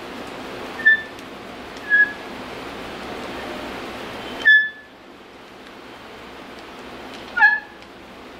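Bench vise being turned by its steel T-bar handle, giving short high squeaks at irregular intervals, about four of them, all at the same pitch. A steady background hiss cuts off about halfway through.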